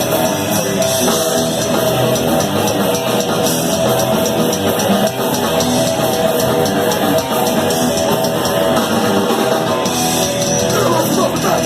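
Speed/thrash metal band playing live: electric guitars and drum kit in a loud, dense wall of sound.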